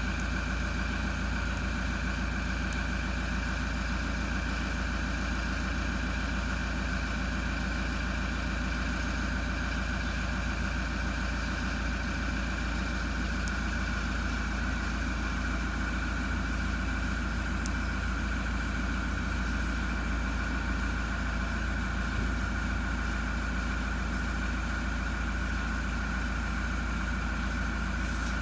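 A steady, unchanging mechanical drone with a deep low hum, like a motor or engine running at idle.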